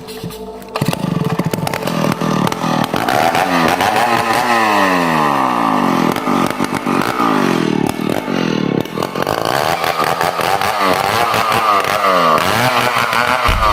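Chainsaw throttled up about a second in and cutting into the trunk of a large ironwood tree. Its engine pitch keeps sinking and rising as the chain bites into the hard wood.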